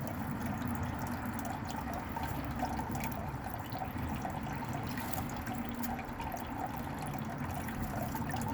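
Garden fountain running, its water trickling and splashing steadily.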